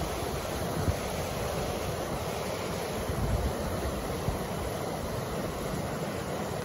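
River in high flow rushing over a low concrete weir and through white-water rapids: a steady, even rush of water, with wind buffeting the microphone a few times.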